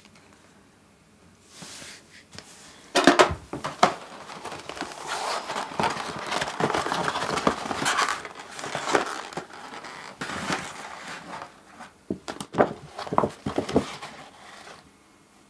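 A flat cardboard box being handled and its lid worked off, with rustling and scraping of cardboard and paper and sharp knocks and taps about three seconds in and again near the end.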